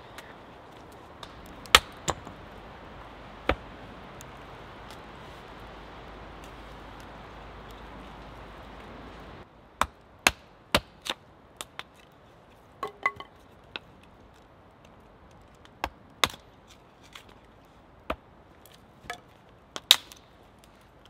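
Wood being chopped for the fire: a series of sharp, single knocks at uneven intervals, a few at first and more often in the second half.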